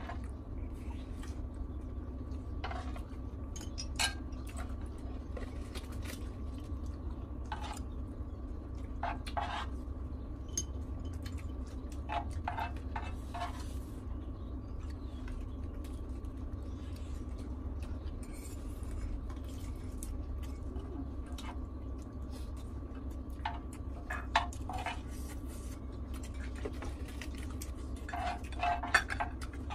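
Metal and wooden spoons scraping and clicking against a grill pan as fried rice is scooped up, in scattered sharp clicks, some in quick clusters, over a steady low hum.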